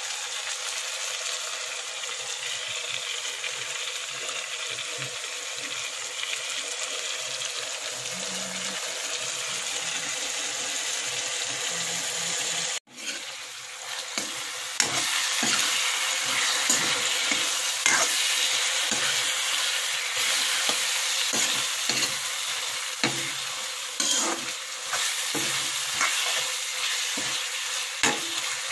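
Vegetables sizzling as they stir-fry in a hot wok, stirred with a spatula. About 13 seconds in the sound drops out for a moment; after that the sizzling is louder, with frequent scrapes of the spatula against the pan.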